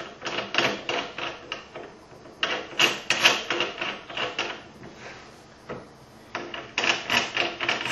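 Rapid light metallic clicks and taps, in runs of several a second broken by a short pause, as an RCBS full-length sizing die is put into a reloading press and turned down its threads.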